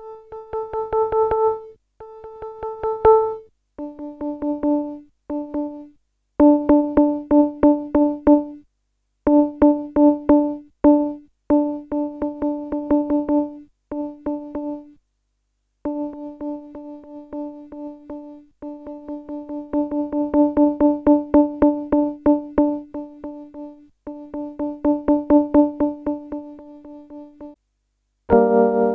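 Keytek CTS-5000 synthesizer playing one note repeatedly in quick runs that go from soft to loud, showing off its velocity-sensitive keys; about four seconds in, the repeated note moves lower. Near the end, a full two-handed chord sounds.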